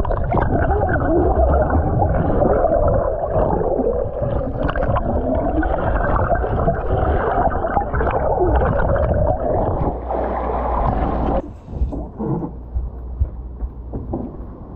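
Muffled, dense water noise heard through a submerged action camera, with wavering tones running through it. It stops abruptly about eleven seconds in and gives way to quieter open-air sound with a few knocks.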